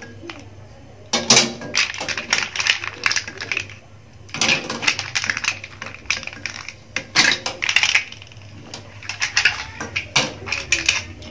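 Green mussel shells clicking and clattering against each other and against a plate as they are handled and dropped into an aluminium pot of water, in several bursts of rapid clicks.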